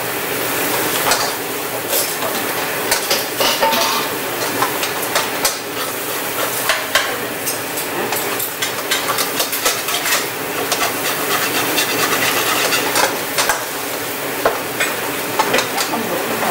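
King crab legs sizzling in a hot skillet while being stirred and tossed with metal tongs and a spoon, with frequent sharp clicks and scrapes of metal on the pan over a steady sizzle.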